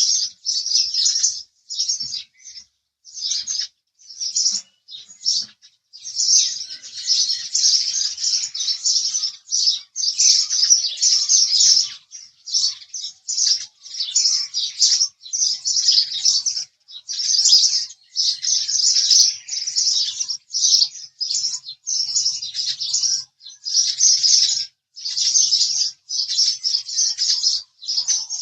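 House sparrows chirping in rapid runs of short, high chirps, broken by brief gaps every second or so.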